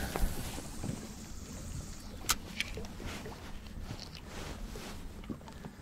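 Wind buffeting the microphone with a low rumble, with a few small clicks and knocks, the sharpest about two seconds in.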